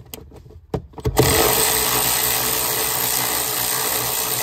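A few light clicks, then about a second in a handheld power tool starts and runs steadily, spinning a socket on an extension to loosen a front seat's rail bolt.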